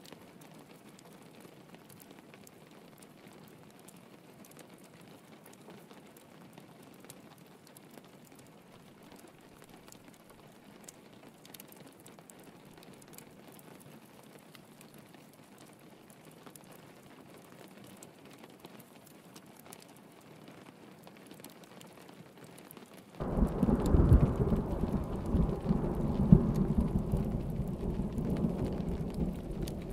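Steady rain pattering, with faint scattered ticks of drops. About three-quarters of the way through, thunder breaks in suddenly, a loud low rumble that keeps rolling.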